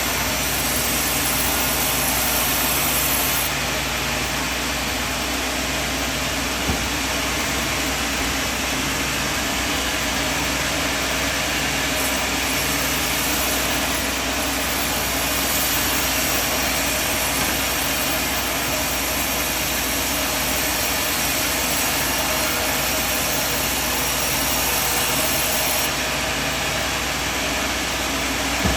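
Sawmill machinery running steadily: a continuous mechanical drone with an even hiss over it.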